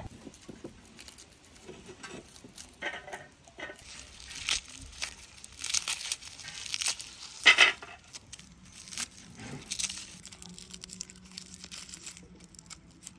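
Fire-roasted garlic bulbs being peeled by hand: dry, charred papery skins crackling and tearing in irregular bursts, the loudest about halfway through.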